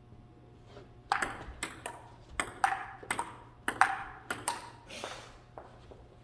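Table tennis rally: the ball clicking sharply off the paddles and the table in quick alternation, about three hits a second. It starts about a second in and stops shortly before the end.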